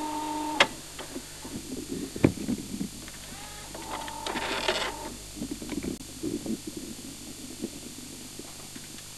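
VHS video recorder's tape mechanism: a steady whir while it fast-forwards, which stops with a sharp click under a second in. Then come a run of mechanical clicks and knocks, with a second short whir about four seconds in, over a steady mains hum and tape hiss.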